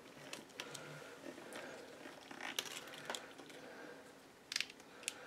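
Corrugated plastic split-loom tubing being flexed and handled as wires are fed into it: scattered light clicks and rustling, with a small cluster of clicks near the end.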